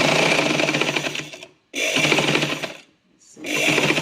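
Manual household sewing machine converted to electric, driven by a belt from an add-on sewing machine motor worked by a foot pedal. It runs in three spurts, stopping and starting twice, with a fast clatter of needle strokes over a steady motor hum.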